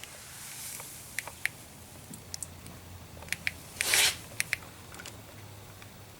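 Plastic motor-oil bottle being handled: scattered light clicks and taps, with one short louder rustle about four seconds in, over a faint low hum.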